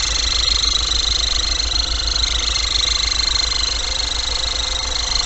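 GAZon Next truck's turbodiesel engine running with a steady high-pitched whistle over its low pulsing beat. The owner takes the whistle for a failing turbocharger, which is throwing oil into the intake pipes.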